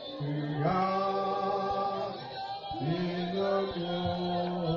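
Slow singing in church, a voice holding long steady notes that change pitch every second or so.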